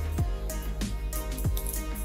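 Electronic background music with a steady beat and deep bass drum hits that drop in pitch.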